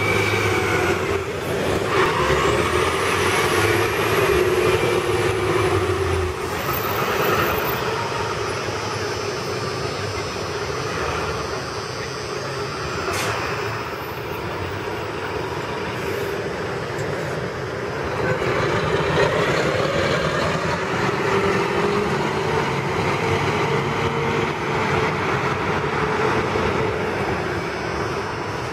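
City transit buses' engines running as the buses move off along a city street. A steady low engine hum lasts about the first six seconds, then gives way to mixed traffic noise with another swell about two-thirds of the way through.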